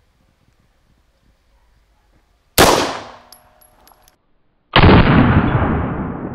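CZ P-09 9 mm pistol fired: two loud bangs about two seconds apart, the first sharp and dying away within a second or so, the second duller with a long fading tail.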